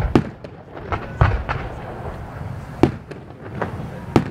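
Fireworks display: aerial shells bursting with sharp bangs at uneven intervals, a quick pair at the start, two more about a second in, one near three seconds and one near the end.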